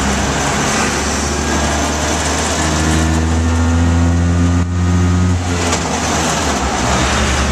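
Bus diesel engine running at speed, heard from inside the cab over steady road noise. Its note grows louder and steadier partway through, then falls back about five and a half seconds in, as when the driver eases off or changes gear.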